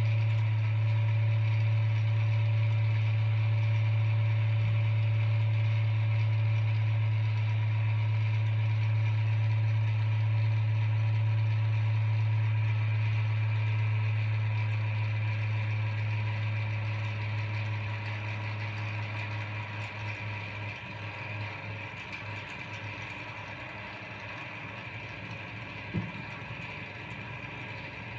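JEE window exhaust fan's small electric motor running with a loud, steady low hum and airflow hiss, on a really cold start with bearings that probably just need oiling. A little past halfway the hum fades and wavers while the higher hiss grows, and a single click sounds near the end.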